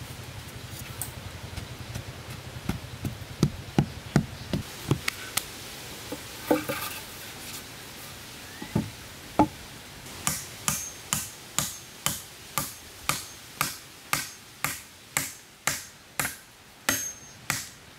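A hand tool striking wood. At first there are scattered, irregular knocks. From about ten seconds in, a steady run of sharp strikes follows, about two a second, some with a faint metallic ring.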